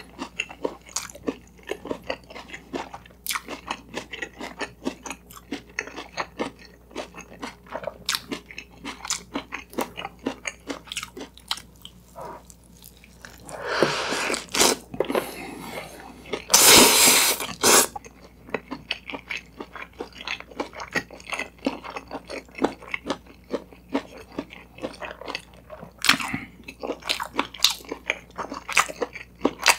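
Close-miked chewing of an Isaac Toast egg-and-sausage sandwich, with many short wet mouth clicks. About halfway through come two louder, crunchy bites into the toasted bread.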